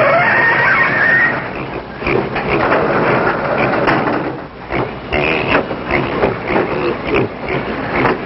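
Livestock being loaded into a slatted wooden stock car: irregular knocks and clatter with animal noises over a steady noisy rumble. The knocking grows busier from about two seconds in.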